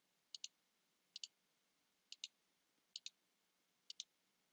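Faint paired clicks, about one pair a second, five pairs in all, over near silence.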